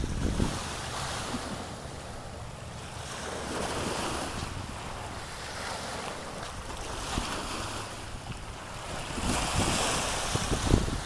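Small surf waves washing in and breaking at the shoreline, swelling about three seconds in and again near the end, with wind rumbling on the microphone.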